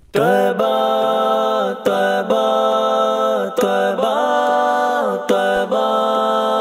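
Wordless nasheed vocals: voices hold long sung notes, moving to a new note every second or so. Each note slides up into place.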